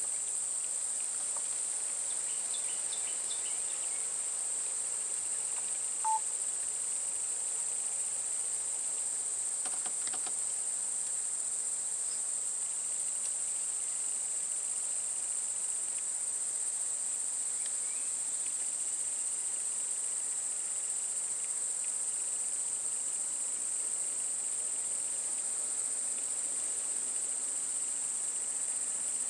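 Steady, high-pitched chorus of insects droning without a break, with a brief faint chirp about six seconds in.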